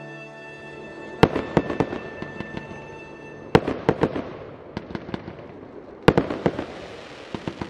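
Fireworks going off in three volleys, roughly two and a half seconds apart. Each volley is a loud bang followed by a quick string of smaller pops. Soft music fades out beneath them in the first few seconds.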